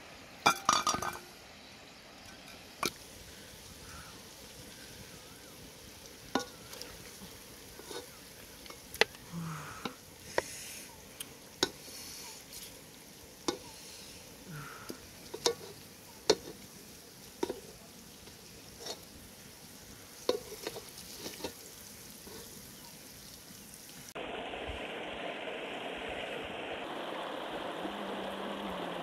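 A pot lid lifted off with a short clatter, then a ladle knocking and scraping against an aluminium cooking pot and a plate every second or two as carrots and chicken liver are served. About 24 seconds in this gives way to the steady rush of a shallow river running over rocks.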